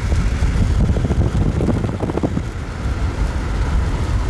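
Road and engine rumble inside a moving car's cabin, with wind buffeting the microphone.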